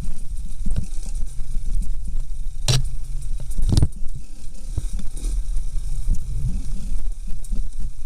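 Enduro motorcycle running at low revs on a slow descent over rough, rocky ground, with frequent knocks and rattles as the bike and camera jolt over stones and ruts, and two sharp knocks about three and four seconds in.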